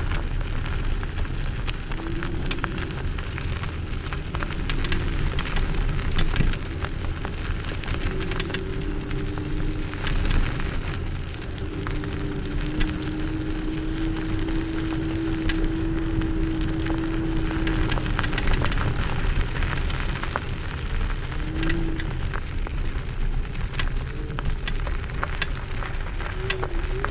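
Segway Ninebot Max G30D electric kick scooter rolling over a gravel forest path: a steady low rumble with a fine crackle of grit under the tyres, and wind on the microphone. A faint hum wavers up and down in pitch throughout.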